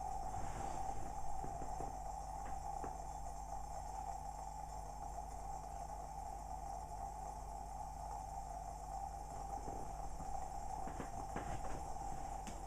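Cona vacuum coffee maker heating: a steady hum with scattered small ticks and pops, a few early and more of them near the end.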